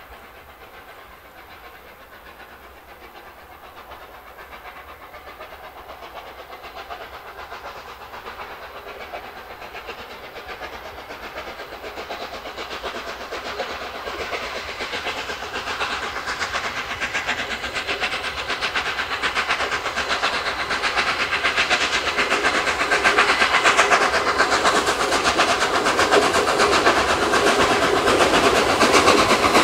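Gresley A3 Pacific steam locomotive Flying Scotsman approaching under steam, growing steadily louder throughout. Its rapid three-cylinder exhaust beats come with the rattle of the train on the rails.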